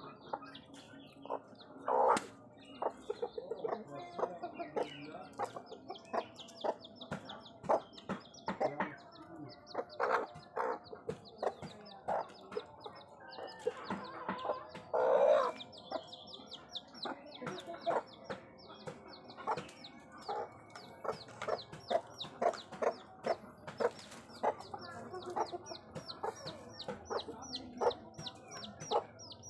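Chickens clucking: a mother hen's short repeated clucks, with her chick peeping high and fast from about a third of the way in. A couple of louder calls stand out, about two seconds in and near the middle.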